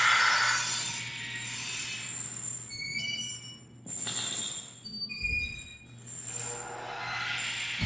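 Horror sound-effect ambience for a slaughterhouse: a steady low hum under swelling noise, with several short high metallic squeals and clinks in the middle and a dull low thump just after them.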